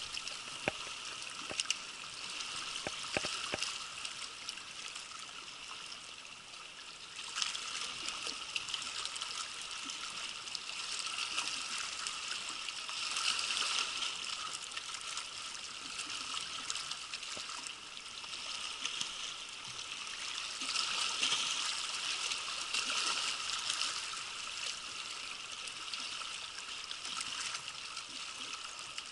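Small waves lapping and washing over the shoreline rocks, a steady hiss that swells and eases every few seconds.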